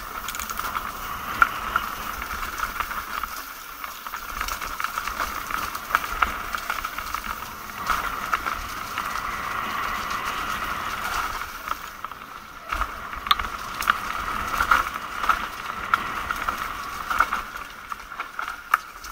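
Mountain bike rolling down a dirt trail: the freewheel hub buzzing steadily while coasting, with scattered sharp clicks and rattles from the bike over the rough ground. The buzz drops away briefly about twelve seconds in.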